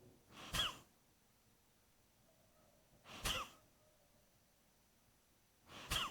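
Kapalbhati breathing: three forceful exhalations through the nose, evenly spaced about two and a half seconds apart. Each is a quick rush of air ending in a sharp puff as the chest is squeezed.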